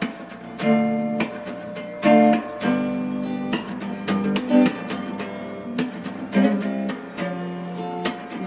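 Background music: acoustic guitar strumming and picking chords.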